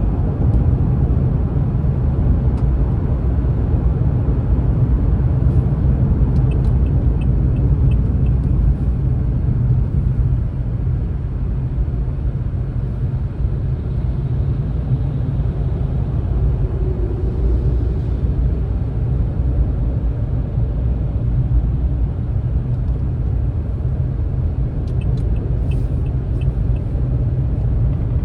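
Steady low rumble of a vehicle's engine and road noise crawling in traffic, with two brief runs of faint high ticks.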